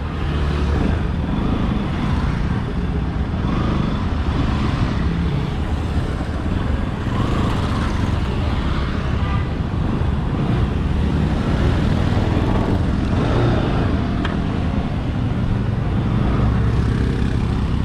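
Motorcycle engine running steadily while riding, with wind rushing over the helmet-mounted action camera's microphone.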